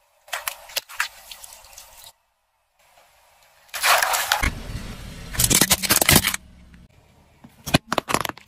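A car tyre rolls over and crushes a run of soft, liquid-filled things in quick succession, with short cuts between them. Balloons filled with liquid snap and burst first. A loud, wet splatter of blue goo comes about four seconds in. Near the end, kiwi fruit squash with a few sharp cracks.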